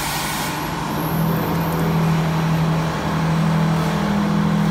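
Machinery running with a steady low drone that grows stronger about a second in, over a constant background rumble.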